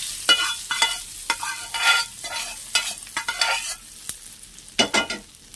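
Steel spoon scraping and clinking against a steel pan and bowl, about a dozen strokes with a metallic ring, as a hot tempering of oil, dried red chillies and curry leaves is scraped into chutney. A short hiss of the hot oil fades out right at the start.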